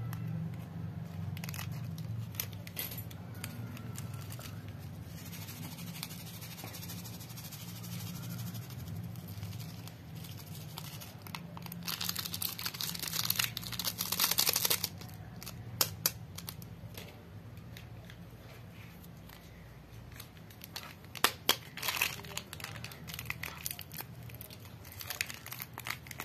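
Paper stick sachet of instant coffee crinkling in the fingers, then coffee granules poured out onto slime in a rustling hiss lasting a few seconds about halfway through. Near the end, sharp crinkles and tearing as a second stick sachet, of Coffee-mate creamer, is opened, over a low steady hum.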